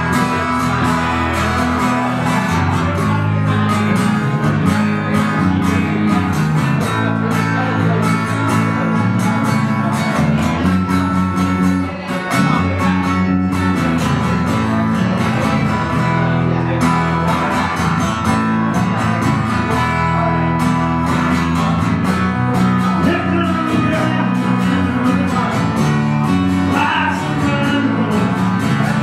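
Live acoustic guitar music: a song played with strummed and picked guitar, at an even, full level with a brief dip about twelve seconds in.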